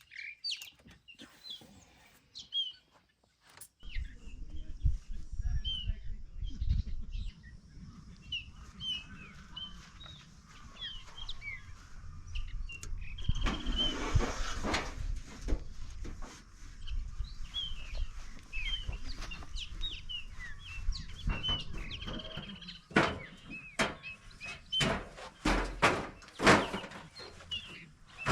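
Birds chirping, many short repeated calls, over a low rumble. A louder hiss about halfway through, and a run of sharp knocks near the end.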